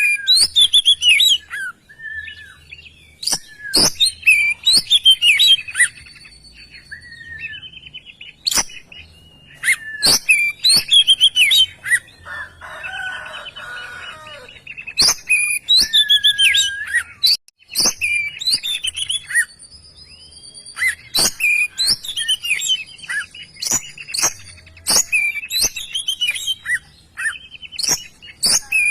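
Male oriental magpie-robin in full, loud song: bursts of varied sharp whistles, chirps and clicking notes in phrases of a few seconds, with a harsher buzzy passage about halfway through.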